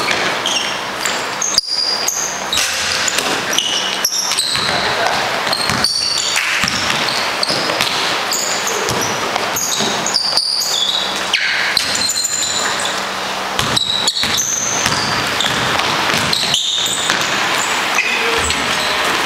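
Basketball bouncing on an indoor gym floor during play, with many short, high-pitched sneaker squeaks scattered throughout and a few sharp strikes.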